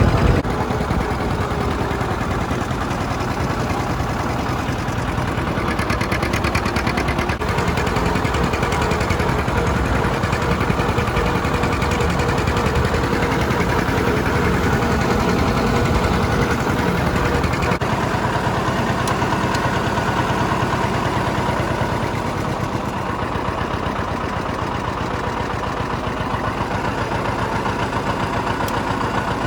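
1959 John Deere 730 Diesel tractor's two-cylinder diesel engine running steadily with an even pulsing beat.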